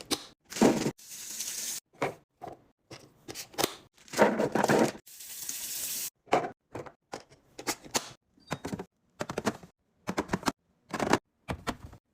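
Drinks and snack packages being handled and set into a fridge or drawer during a restock: a quick run of clacks, knocks and clatters, with a couple of longer rushing, rustling noises, one near the start and one around the middle.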